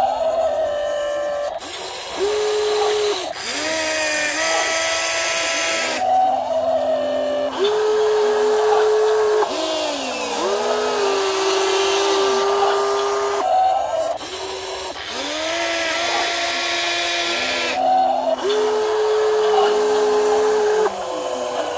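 Electric motors of a WLtoys 16800 RC excavator whining as the boom, arm, bucket and turntable are worked in turn. Each whine starts and stops every second or two, its pitch stepping up or down or gliding as one motion gives way to the next.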